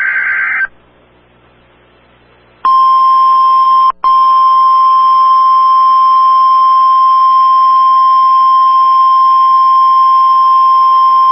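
The end of an EAS digital header burst, a short buzzy warble, is followed by a pause of about two seconds. Then the NOAA Weather Radio warning alarm sounds: a single steady high tone, loud, with a brief break about four seconds in.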